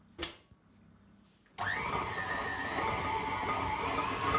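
Electric stand mixer switched on about a second and a half in, its motor running at a steady speed with a whine as the beater creams softened butter and caster sugar.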